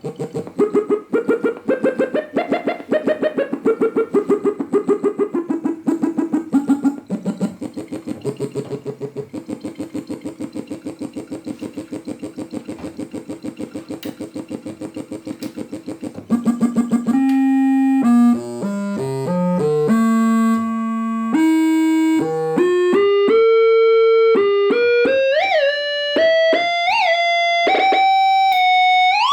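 A 1979 Yamaha CS-20M monophonic analog synthesizer playing one line at a time. For the first half it plays a fast stream of short repeated notes whose pitch climbs and then falls. About halfway through it changes to held notes stepping up a melody, with pitch bends near the end.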